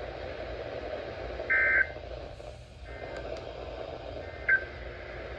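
NOAA Weather Radio EAS end-of-message data bursts: short buzzy two-tone digital chirps over steady radio hiss. One comes about a second and a half in and a shorter one near the end, marking the close of the warning broadcast.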